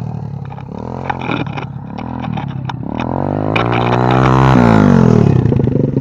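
Single-cylinder pit bike engine revving up and down as the bike rides back toward the camera, growing louder as it nears. About four and a half seconds in the throttle is closed, the pitch falls, and it settles to a steady idle. A scatter of sharp clicks sounds in the first half.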